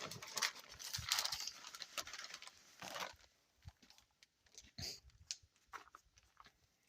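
Soft rustling and scattered light clicks and taps from shredded cheese being handled and sprinkled into a casserole pan, busier in the first few seconds and sparser after.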